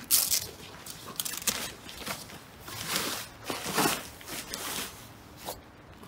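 Hook-and-loop (Velcro) tabs being pulled off a dome tent's frame poles, several short raspy rips about a second apart, mixed with the rustle of the nylon fly sheet being gathered up.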